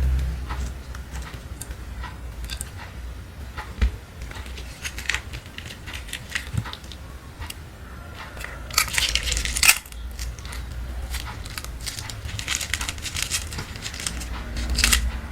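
Crackling and crinkling from slime and its plastic packing being worked by hand: a run of small irregular clicks that is busiest about nine to ten seconds in.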